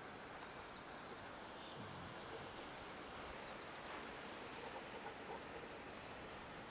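Steady hiss of sea surf and drizzle on a cliff top, with faint, brief bird calls now and then.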